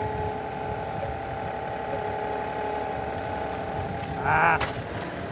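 John Deere compact tractor's diesel engine running steadily while its loader grapple works a load of limbs. About four seconds in there is a brief pitched, wavering sound, then a single sharp click.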